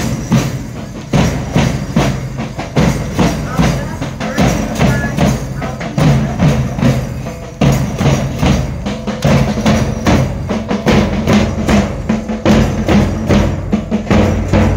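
Percussion-led music: a fast, steady beat of drums and other struck instruments, played loud and without a break.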